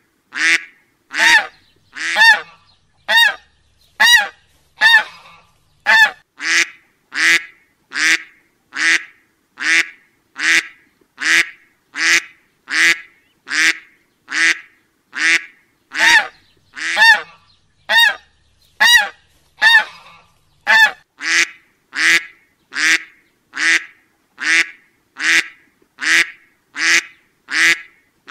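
Duck quacks repeated one after another at a steady, even pace of a little more than one per second, each call short and pitched, with clean silence between them like a looped sound effect.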